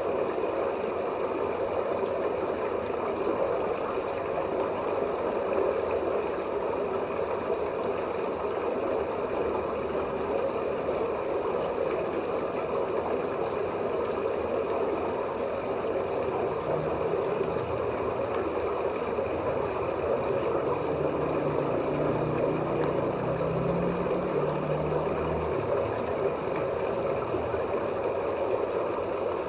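Steady rushing, gurgling water noise in the angelfish pond. A low hum comes in about halfway through and fades a few seconds before the end.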